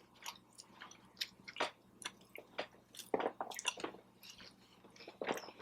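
A person chewing food close to the microphone: soft, wet mouth smacks and small clicks, irregular throughout.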